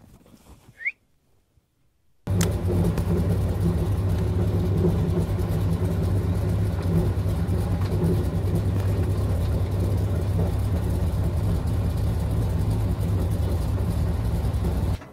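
A steady engine running, starting abruptly about two seconds in and cutting off just before the end.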